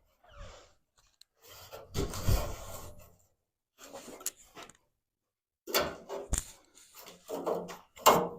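Irregular scraping and rubbing of sheet metal being handled, in short bursts with brief pauses, and a sharp knock about six seconds in.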